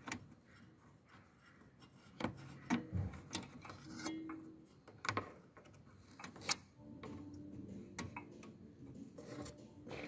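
Plastic clicks and rubbing as fingers work a headlight bulb and its wired plug in the back of the headlight housing: several sharp clicks, a few seconds apart, among softer scraping.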